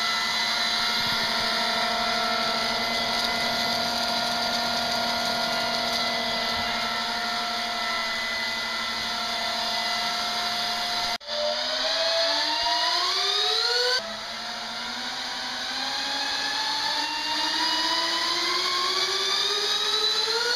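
Electric motors and fans of a 1:40 scale Boeing 787 model's two jet engines running as a loud, steady whine. After an abrupt break about 11 seconds in, the whine climbs steadily in pitch as the throttle is turned up, breaks off again near 14 seconds and keeps rising to the end.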